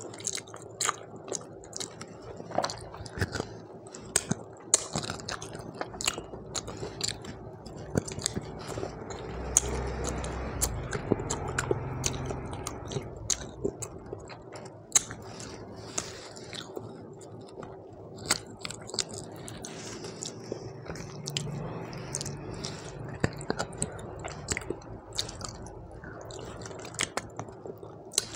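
Close-miked chewing of rice and mutton curry, with frequent wet mouth smacks and lip clicks.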